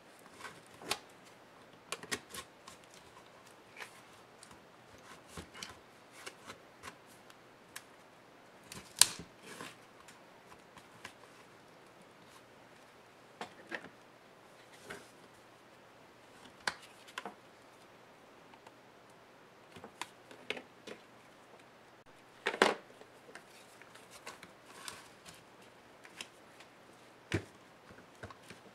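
Irregular clicks and snaps of plastic clips and a pry tool as a laptop's case is prised apart along its seam. The loudest snaps come about nine seconds in and again about three quarters of the way through.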